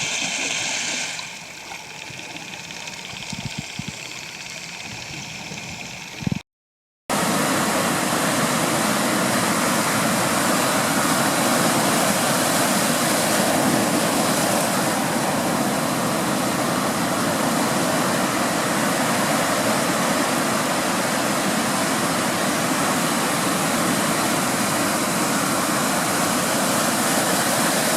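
A steady, loud rushing noise with a faint steady hum under it, starting after a short break about seven seconds in; before the break, quieter mixed background sound.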